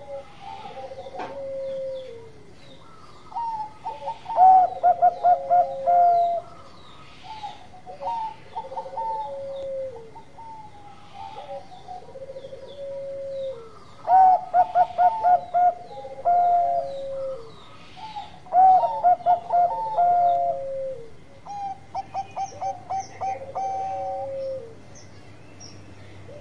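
Bangkok-strain zebra dove (perkutut) cooing its song over and over: each phrase is a quick run of short staccato notes followed by longer drawn-out coos that fall slightly at the end. It is a bird in full, repeated song, the 'gacor' singing kept to lure other perkutut.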